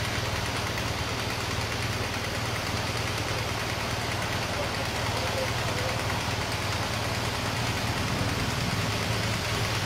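Steady low engine hum and road noise from a slow-moving convoy of cars and police motorcycles.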